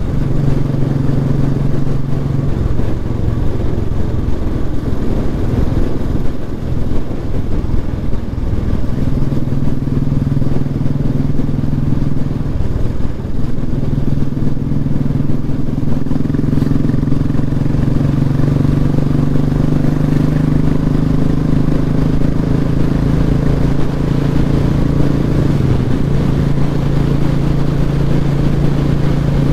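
Royal Enfield Bullet's single-cylinder engine running as the motorcycle is ridden along the road. Its note wavers for the first several seconds, then holds steady, with a brief dip about a third of the way in.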